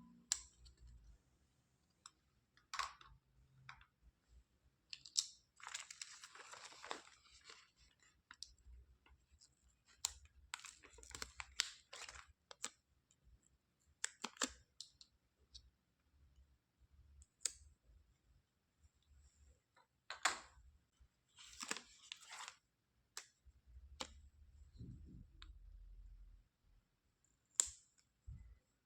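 Plastic toys being handled: scattered clicks and taps, with two longer stretches of rustling, about five seconds in and again past twenty seconds.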